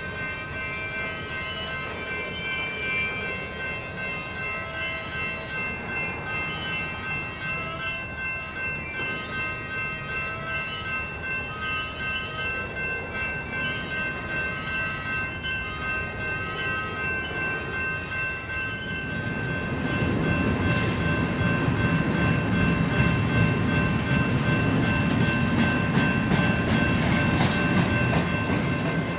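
Railroad crossing signal ringing with steady high tones, then a train passing close by from about two-thirds of the way in, a louder rumble with rapid wheel clicks over the rails.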